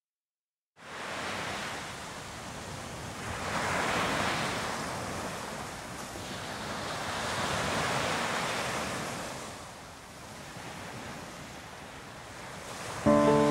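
Sea waves washing up onto a sandy beach, starting just under a second in and swelling twice, about 4 and 8 seconds in. Music comes in near the end.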